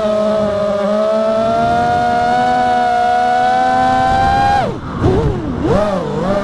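FPV quadcopter's brushless motors whining at steady throttle, the pitch creeping up. About four and a half seconds in the pitch drops sharply, then wavers down and up as the throttle is chopped and punched, before climbing again.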